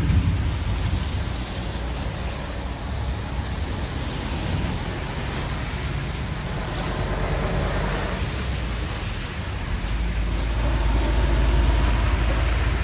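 Steady rain hiss over a deep low rumble that swells about ten seconds in.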